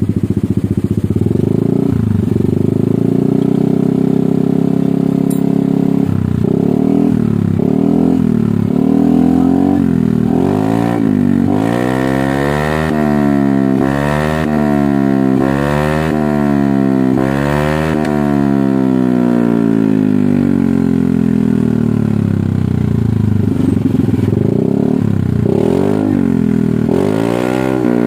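Yamaha Lexi scooter's single-cylinder engine, bored up to 155 cc, running through a stainless full-system racing exhaust while held on its centre stand. It starts at a steady idle and is then blipped over and over, the pitch rising and falling, with a run of quick back-to-back revs in the middle. It drops back to idle, then is revved again near the end.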